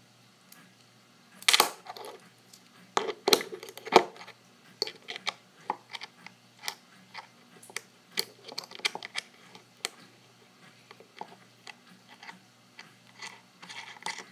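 Small metal fidget-spinner parts clicking and clinking against each other and the tabletop as they are handled and fitted together: a steady run of light clicks, with the sharpest clinks in the first four seconds.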